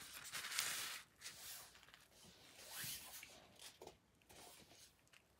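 Nylon play-tent fabric rustling in a few short swishes, the loudest in the first second.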